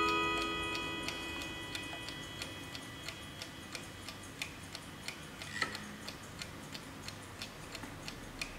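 Hermle mantel clock movement ticking steadily, about three ticks a second. The last notes of its chime bars ring out and fade away in the first second or two.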